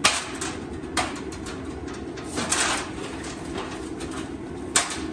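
Aluminium ladder knocking and clattering as it is handled and set against a boat hull: a sharp clank at the start, another about a second in, a few rattles around the middle and a loud clank near the end, over a steady low rumble.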